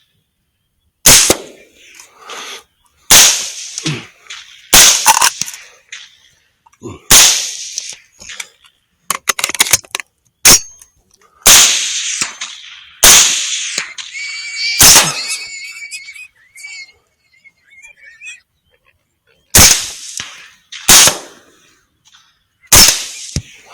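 Suppressed rifle fired about a dozen times in quick succession, sharp cracks one to three seconds apart with a short echo after each. Around the middle, between shots, there is a high wavering cry.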